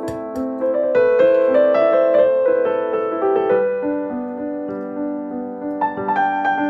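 Background piano music: a melody of held, overlapping notes.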